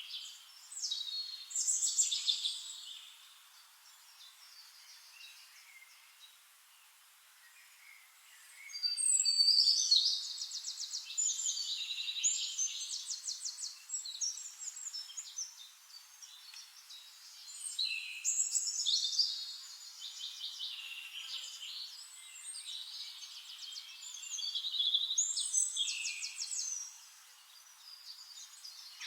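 Wild songbirds singing: high chirps and rapid trilled phrases come in bursts every several seconds, with a quieter lull of about five seconds near the start.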